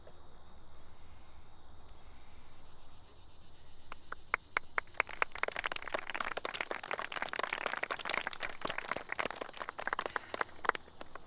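A small group of people applauding: a few scattered claps about four seconds in build quickly into steady clapping, which dies away shortly before the end. Before the clapping there is only faint outdoor background.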